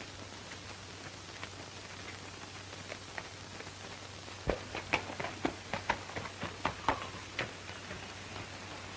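Horse's hooves clopping: a quick, uneven run of about a dozen sharp hoof strikes starting about halfway through, over the steady hiss of an old film soundtrack.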